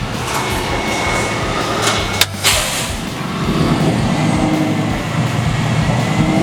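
Roll-off dumpster truck's engine running steadily, with a brief sharp noise about two seconds in.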